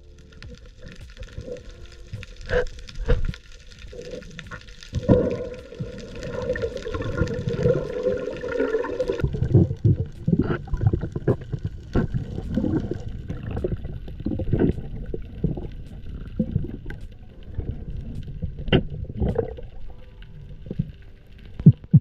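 Underwater water noise picked up by the diving camera: irregular gurgling and bubbling bursts of water moving around the housing. A band of faint steady tones runs from about five seconds in until about nine seconds.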